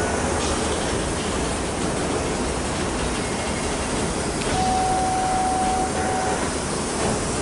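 Empty Norfolk Southern coal cars rolling slowly past with a steady rumble of steel wheels on rail. About halfway through, a single high steel squeal sounds for nearly two seconds.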